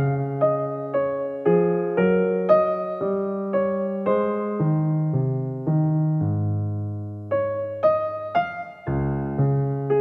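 Background music: a gentle electric piano playing a melody of evenly paced notes, about two a second, with a long held low chord around the middle.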